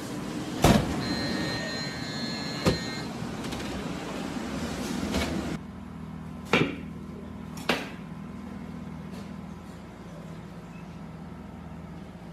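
Commercial combi oven running with a steady fan hum, its door clunking loudly about half a second in and again about two and a half seconds in, with a thin high whine between. Then a quieter steady hum with two sharp knocks.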